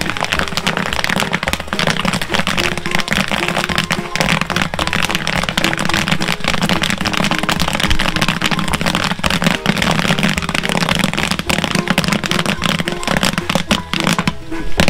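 Popcorn kernels popping fast and densely in a large kettle corn popper, a continuous crackle of pops, while the batch cooks in oil with sugar and sriracha seasoning. The popping thins briefly near the end.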